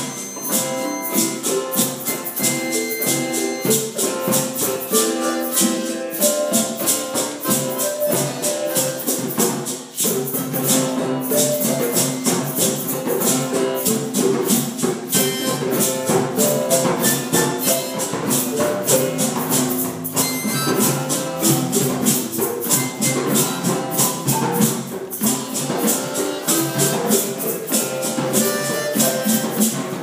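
Group improvisation on hand drums and tuned percussion: many quick strikes and rattles keep going throughout, over a scatter of held pitched notes. The playing dips briefly about ten seconds in.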